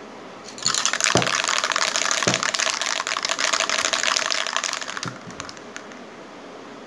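ABRO aerosol spray paint can shaken hard, its mixing ball rattling in a fast run of clicks for about four and a half seconds, starting about half a second in: the paint being mixed before spraying.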